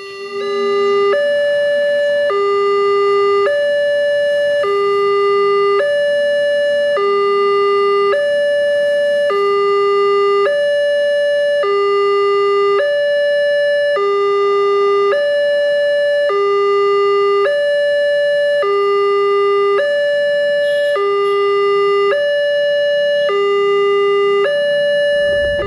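Railway level-crossing warning alarm from a Wantech crossing's post-mounted speaker: an electronic two-tone chime alternating between a lower and a higher tone about once a second, repeating steadily. It signals an approaching train while the barrier arm lowers.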